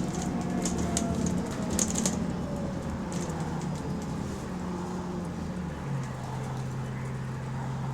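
Bus engine running with an exhaust leak, with sharp ticks in the first couple of seconds. About six seconds in, the engine settles into a steady low idle.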